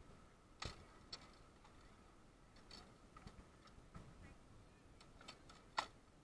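Faint sparring swords, cut-and-thrust blades meeting: a scattering of sharp clicks and light clanks, about seven in all, the loudest near the end.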